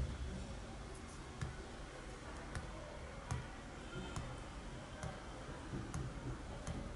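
Light, sharp taps about once a second as a finger touches the button on top of a dimmable LED lamp speaker, stepping the lamp's brightness.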